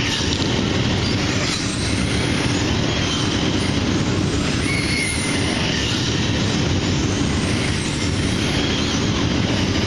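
Radio-controlled trucks racing on a dirt track: a steady rumbling din, with faint short motor whines coming and going above it.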